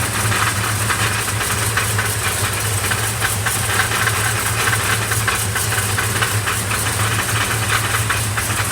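Car engine idling with a rapid, steady clatter of fine ticks over a low hum. The owner cannot tell which part of the engine the clatter comes from.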